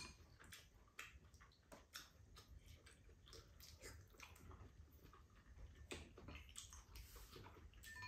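Near silence with faint, scattered clicks of spoons and chopsticks against bowls and a pan as two people eat.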